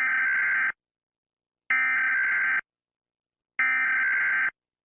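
Emergency Alert System SAME header: three bursts of data tones, each just under a second long with about a second of silence between them. This is the digital code that opens an EAS alert.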